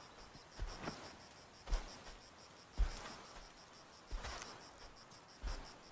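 Insects chirping in a steady, fast-pulsing trill, with a soft crunching thud about once a second.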